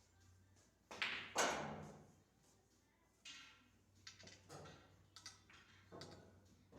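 Pool balls clacking during a shot: two sharp clacks about a second in, followed by several lighter knocks of balls striking each other and the cushions.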